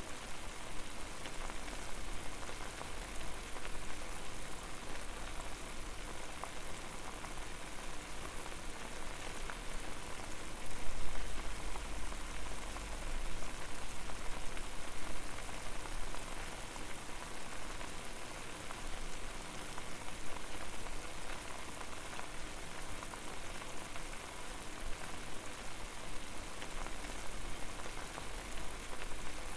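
Water boiling hard over a fire: a steady bubbling, popping hiss with a low rumble underneath that swells briefly about eleven seconds in.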